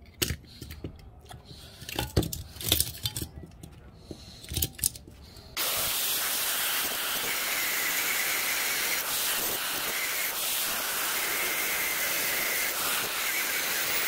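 A few sharp knocks and clinks as a washing-machine motor is handled. About five and a half seconds in, an angle grinder starts and cuts steadily into the motor's metal housing, throwing sparks.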